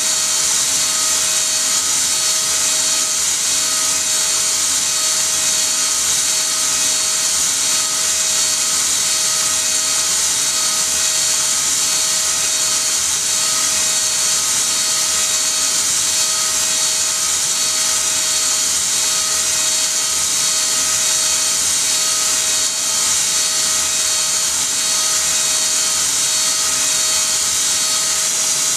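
CNC spindle running steadily while a small end mill cuts a round pocket into a brass plate: a continuous high-pitched whine and cutting hiss, with a fainter tone pulsing evenly under it.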